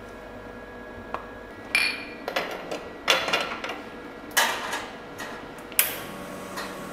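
A run of sharp metal clanks and clinks from an espresso portafilter being handled and locked into the group head of a commercial espresso machine, with a small glass set down on the steel drip-tray grate. The knocks start about a second in and come in clusters, the last sharp one near the end.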